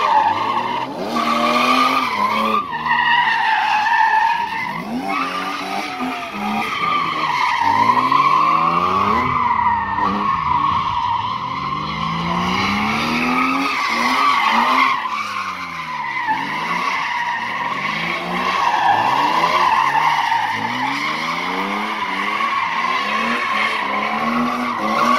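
Competition car on a slalom course, its engine revving up and falling back again and again, every second or two, as it accelerates and slows between the gates. Its tyres squeal through the turns.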